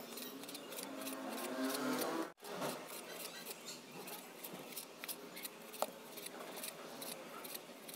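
Cleaver slicing raw pork on a wooden cutting board: the blade taps the board in quick strokes, about four a second, then thins out after a brief break about two seconds in.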